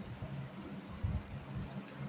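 Nylon spatula stirring a spice paste frying in oil in a nonstick pan: soft scraping and knocks with a faint sizzle, over a steady low hum.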